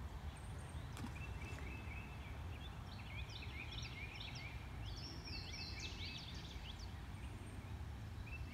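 Several wild birds chirping and singing in short, quick notes, busiest in the middle, over a steady low background rumble. A single click about a second in.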